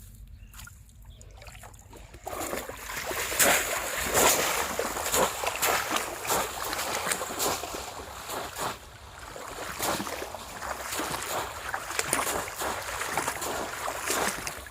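Shallow water splashing and sloshing irregularly, starting about two seconds in, over a low steady rumble.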